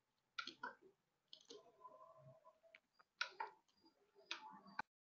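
Near silence broken by a few faint clicks and rustles, ending in one sharp click near the end, after which the sound cuts off.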